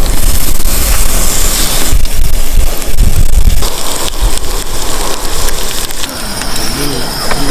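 Pork belly sizzling and spitting in a frying pan, a steady crackling hiss, with a low rumble through the first half.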